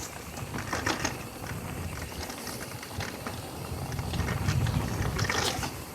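Mountain bike riding over a dirt trail: a rough rolling rumble from the tyres, with scattered rattling clicks from the bike. The rumble grows about four seconds in.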